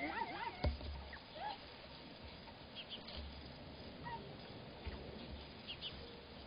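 An animal's wavering, pitched call in the first half second, followed by a click and a few short chirps, then faint scattered sounds.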